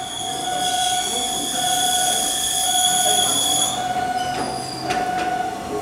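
Enoden electric railcar rounding a tight curve at low speed, its wheels squealing with a high, ringing screech for about three seconds before it fades. Under it a level crossing alarm keeps ringing, a steady tone with a repeating higher note.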